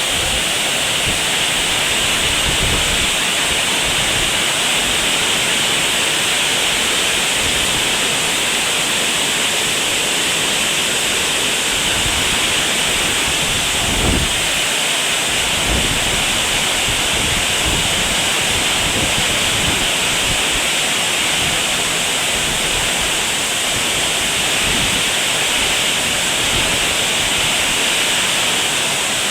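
Heavy rain falling steadily in a dense, even hiss, with brief low thumps now and then; the clearest comes about halfway through.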